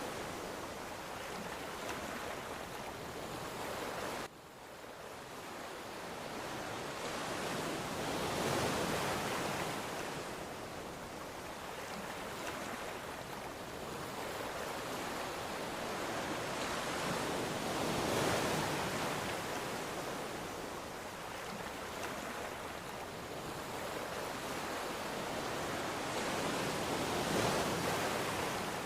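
Ocean waves breaking and washing ashore, a steady rushing hiss that swells with each wave about every nine seconds. The sound drops abruptly about four seconds in and builds back up.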